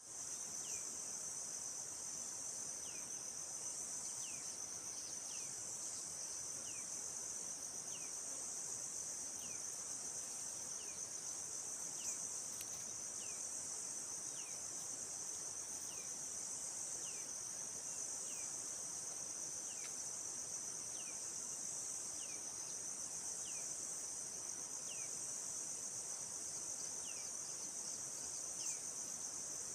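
A steady, high-pitched chorus of insects, crickets or cicadas, trilling without a break. Over it a bird repeats a short, falling whistled note about once a second.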